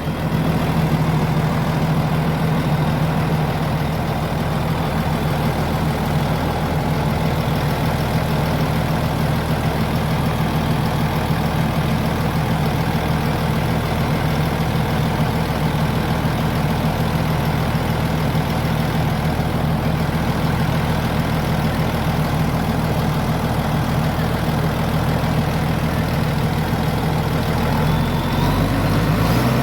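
Komatsu D85SS bulldozer's diesel engine idling steadily after an engine-oil change, its note shifting near the end.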